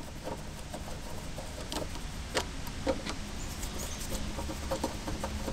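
Screwdriver backing out the terminal screws on a double-pole AC contactor: a few faint, scattered clicks and scrapes of metal over a low steady hum.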